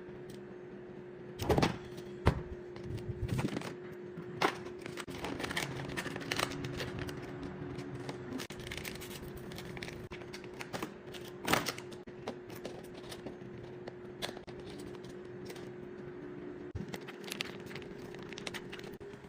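Scattered clicks, knocks and scraping of things being handled, over a steady hum.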